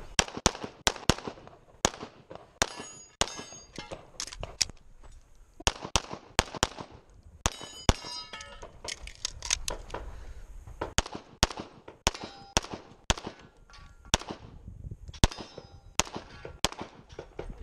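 Rapid pistol fire from an STI Trojan 1911 in .40 S&W loaded to major power factor: many shots in quick pairs and strings with short gaps between. Steel plates clang and ring after hits about three seconds in, about eight seconds in and near fifteen seconds.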